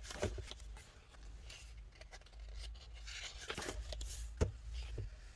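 Paper and card rustling with a few light knocks as printed photos are handled and shuffled; the sharpest knock comes near the end.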